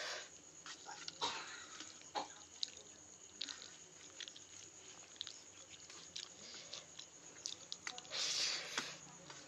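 Fingers mixing and scooping rice and potato curry on a steel plate: soft squishing with small clicks of fingertips on the metal, and a louder burst of chewing near the end.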